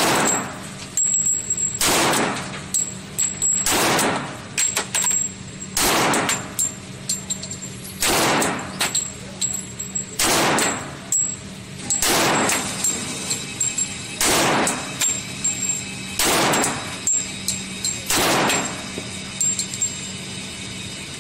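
Glock 21 pistol firing .45 ACP rounds at a steady pace, about ten shots roughly two seconds apart, each echoing in a concrete indoor range, with fainter cracks between them.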